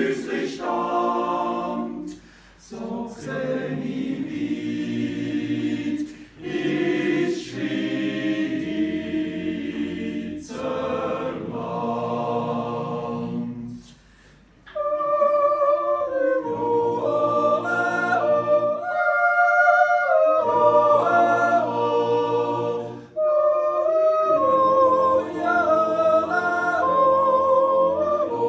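Swiss men's yodel choir singing a cappella in several parts, phrase by phrase with short breaths between. About fifteen seconds in, it moves into a louder part with a high melody line stepping over held chords.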